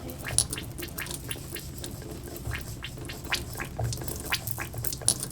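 Hair oil being worked into hair and scalp with the fingers: irregular wet clicks and crackles.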